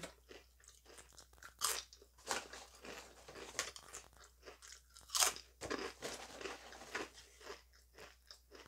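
A person chewing Herr's fire-roasted sweet corn chips: irregular crisp crunches, with a few louder ones standing out.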